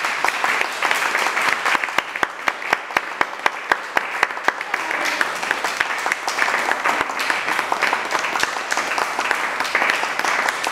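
Audience applauding, with one pair of hands clapping close and loud at about four claps a second for a couple of seconds near the start.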